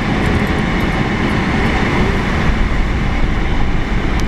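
Steady road and tyre rumble of a car driving over an icy, snow-covered road, heard from inside the cabin.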